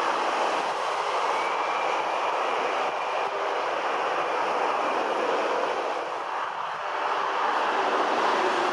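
Twin-engine jet airliner at takeoff thrust on its runway roll: a steady, distant roar of jet engines.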